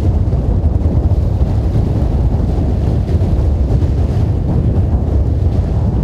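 Wind buffeting the camera microphone: a steady, loud low rumble.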